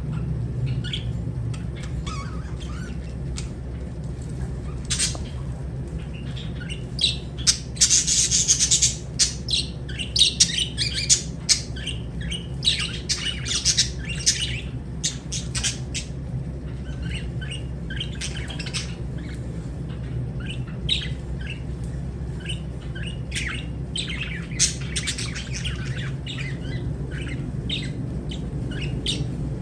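Lovebirds chirping and squawking in quick, sharp calls. The calls are busiest and loudest from about a quarter to half way through, with one harsh squawk standing out, then come more sparsely. A steady low hum runs underneath.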